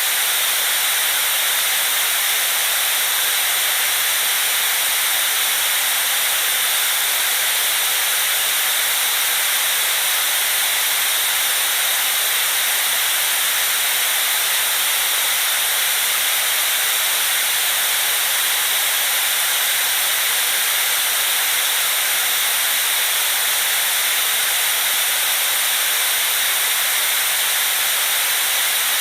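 Continuous white noise: a loud, steady hiss that never changes, brightest in the high range.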